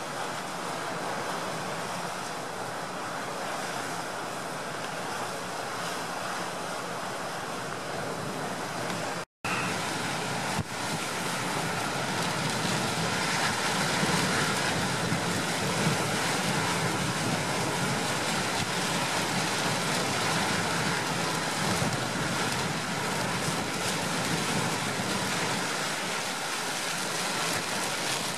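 Storm wind and heavy surf breaking against a seawall, a steady rush of noise. It cuts out briefly about nine seconds in and is a little louder afterwards.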